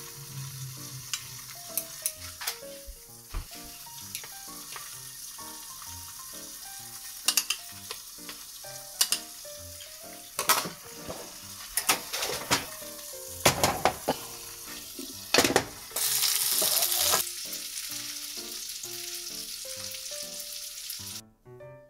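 Seaweed-and-corn soup bubbling in a small pot on the stove, a steady sizzling hiss with scattered sharp clicks. About three quarters of the way in, a louder burst of sizzling lasts about a second. Just before the end the hiss drops away.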